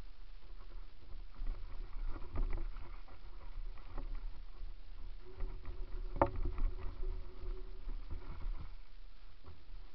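Mountain bike rolling down a gravel-and-dirt trail: a steady rumble with rattles and knocks over the bumps, the sharpest knock about six seconds in.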